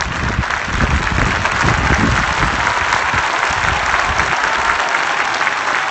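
Large stadium crowd applauding, many hands clapping at once in a dense, steady wash. A low rumble underneath fades out about four seconds in.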